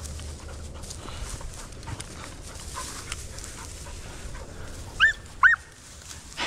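A deer hound gives two short, high-pitched cries about five seconds in, each rising then falling in pitch, over a low rumble of wind and the rustle of dry grass.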